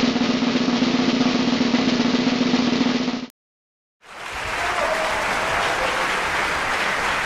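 Intro music built on a sustained drum roll that cuts off abruptly about three seconds in; after a second of silence, a second dense, noisy stretch fades in and holds.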